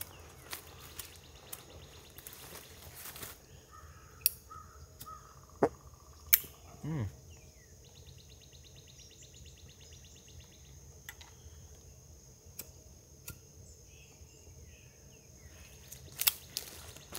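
Sharp, scattered clicks of lighters being sparked as cigars are lit, the loudest a little past the middle, over a quiet swamp background with a brief rapid pulsing call near the middle.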